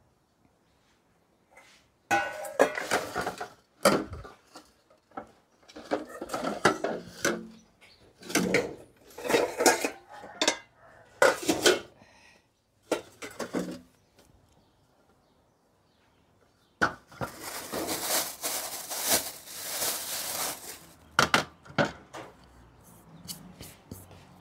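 Kitchenware clattering off-camera: pots, dishes and utensils knocking and scraping in irregular bursts with sharp clinks. A denser rushing noise lasts about four seconds later on.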